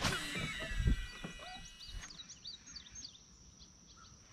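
A sudden rush of noise with thin ringing tones and a falling whine that fades over the first two seconds, with a low thud about a second in. Then small birds chirp briefly over quiet pond-side air.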